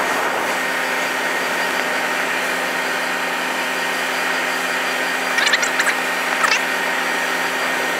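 Steady drone of heavy vehicle engines running, from the crane and emergency trucks standing by, with a steady low hum under it. A few short clinks come about five and a half and six and a half seconds in.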